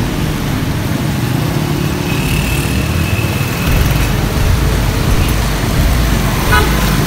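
Road traffic on a city street: a steady low rumble of vehicle engines that grows louder about four seconds in.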